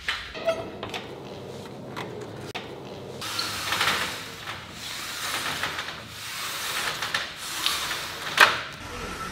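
A pleated folding insect screen and its aluminium frame being handled and slid along a track, with scattered clicks and knocks. From about three seconds in comes a longer stretch of sliding noise, and a sharp knock near the end is the loudest sound.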